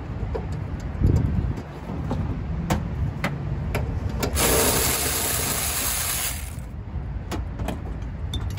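Scattered clicks and knocks of parts and tools being handled on a car, over a steady low rumble of wind on the microphone. A loud rushing hiss lasts about two seconds around the middle.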